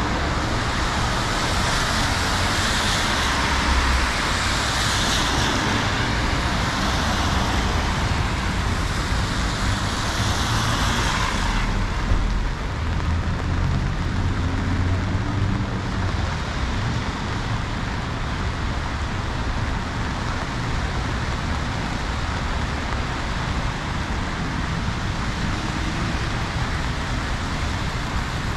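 Traffic on rain-wet city streets: a steady hiss of tyres on wet road with the low rumble of passing cars swelling and fading. The high hiss drops off abruptly about twelve seconds in.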